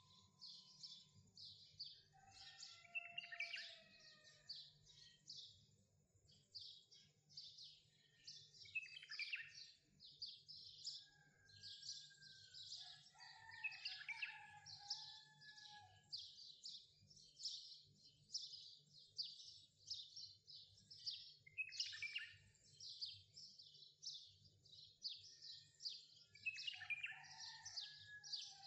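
Faint birdsong: many quick high chirps, several a second, with a lower call sliding down in pitch about every five seconds.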